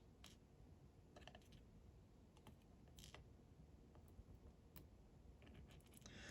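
Faint, scattered light clicks of small lock parts, the pins, drivers and springs of a Clavis pin-tumbler lock, being handled and set down while its pin stacks are taken out.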